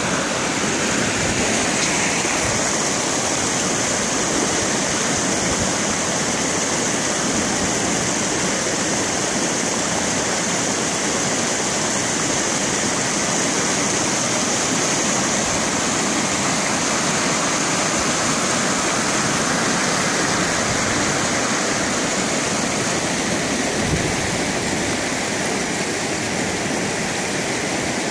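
Muddy floodwater rushing over gravel and dirt in shallow runoff channels: a steady, churning rush of fast-moving water.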